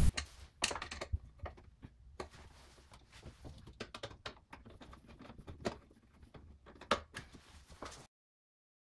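Hand screwdriver turning a small screw into an LED wall sconce: scattered faint clicks and ticks of the driver and metal fixture being handled, with a few sharper knocks.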